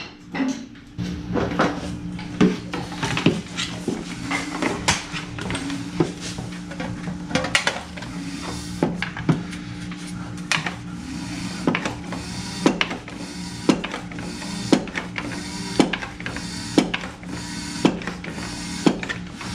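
Background music with a steady beat of about one hit a second over held low notes.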